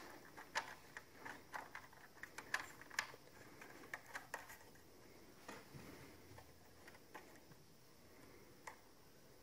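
Faint small clicks and ticks of a Linksys WRT1900AC router antenna being screwed by hand onto its threaded connector. The clicks come close together for the first few seconds, then only now and then.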